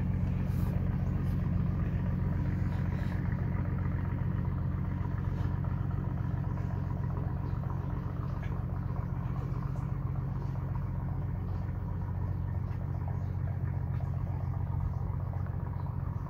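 Motorbike engine running steadily at low revs: an even low hum that holds its pitch throughout.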